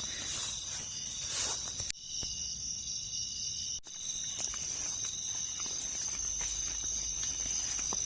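Insects droning steadily in the field at a high pitch, cut off sharply for an instant about two seconds in and again near four seconds, with a few faint ticks toward the end.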